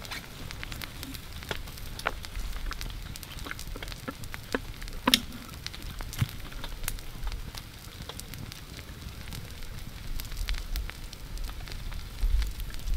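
Irregular wet crackles and ticks as fat and membrane are picked and peeled by hand from a skinned beaver carcass, with one sharper snap about five seconds in.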